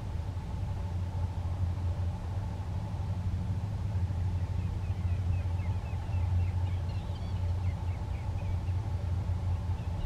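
A steady low rumble with a faint hum. From about halfway in comes a quick series of faint, high, short chirping bird calls.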